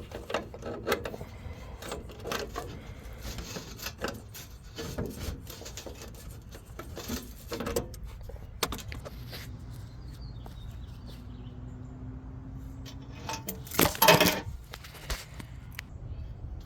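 Hand tools and metal parts clinking and knocking during work on a car radiator: scattered sharp clicks, then a loud metallic clatter about fourteen seconds in.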